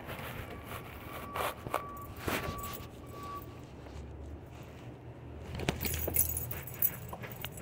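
Hands and shoes knocking and scraping on the riveted steel girders of a railroad trestle while climbing, with scattered sharp knocks and a rustling scrape near the end. A thin ringing tone sounds for about two seconds from about a second in, over a low rumble.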